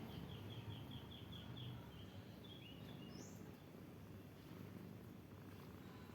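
A bird singing a quick run of repeated chirps, about five a second, then a few falling notes and one higher note about three seconds in, over a faint low rumble.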